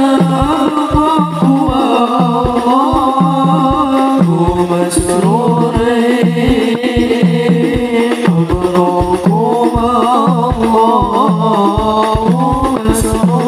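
Male voices singing an Islamic sholawat melody through microphones, accompanied by rebana frame drums beating a steady rhythm.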